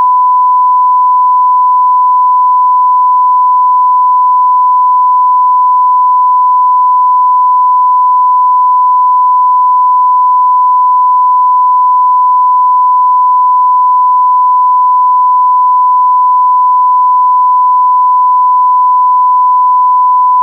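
Censor bleep: a single steady 1 kHz sine tone, loud and unbroken.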